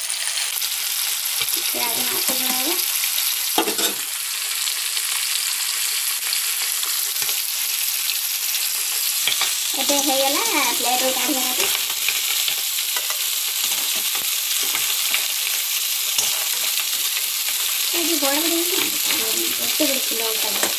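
Pumpkin-flower fritters in rice batter frying in hot oil in a steel kadai: a steady sizzle, with a few clicks and scrapes of a metal spoon turning them in the pan.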